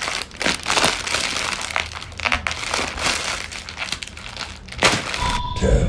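Plastic Lay's chip packets crinkling and rustling, in a long run of irregular crackles, as they are bitten and tugged open by mouth.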